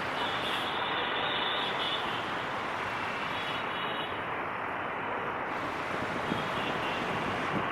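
Steady running noise of a diesel-hauled passenger train on a curve, with two light knocks near the end.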